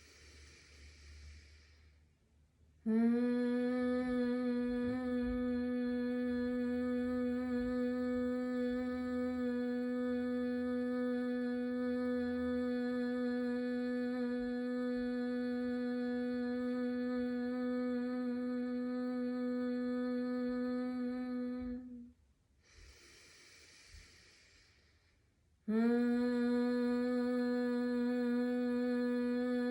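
A woman humming with closed lips in bhramari, humming bee breath pranayama: an audible inhale through the nose, then one long steady single-pitch hum of nearly twenty seconds, another inhale, and a new hum starting near the end.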